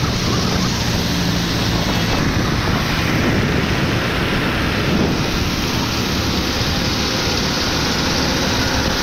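Steady wind rush on the microphone over a motorcycle's engine and tyre noise on a wet road, heard from the moving bike.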